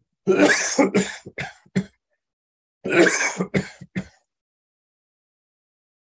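A man coughing and clearing his throat in two bouts, each a quick run of several hacks, the second starting about three seconds in.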